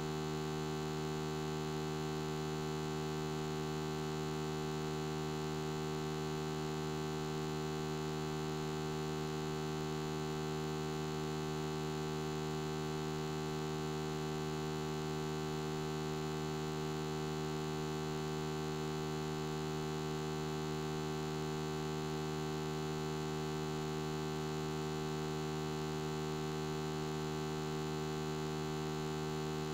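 Steady electrical mains hum, a low buzzy drone with many higher overtones, unchanging in pitch and level.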